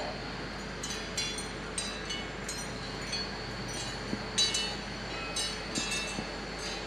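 Unitree Go2 robot dog moving about as it sniffs around: irregular light clicks and taps from its feet and joints, a few a second, over a steady hum.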